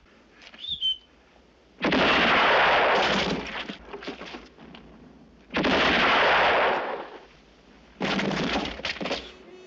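Movie gunshots in three loud volleys, at about two seconds, five and a half seconds and eight seconds in. Each volley is a shot or a quick run of shots with a long echoing tail.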